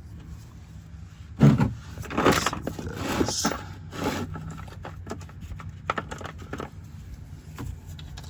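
Handling noise: a sharp knock about a second and a half in, then rustling and scraping bursts and scattered clicks over a steady low hum.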